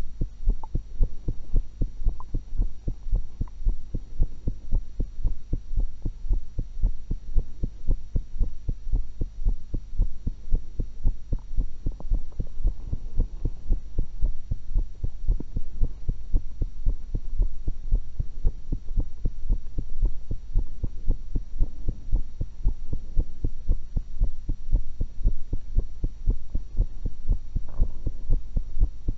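Human heartbeat picked up through a stethoscope: a steady, even run of low thuds.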